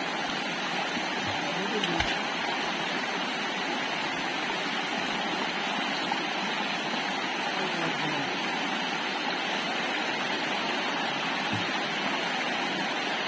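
Shallow rocky stream rushing steadily, with water spilling through a low barrier of ferns and sticks. A single thump about two seconds in.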